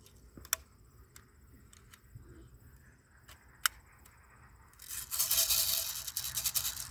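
A BB gun firing: two short, sharp snaps about three seconds apart, the second much louder. Near the end comes a loud hiss-like noise lasting about two seconds.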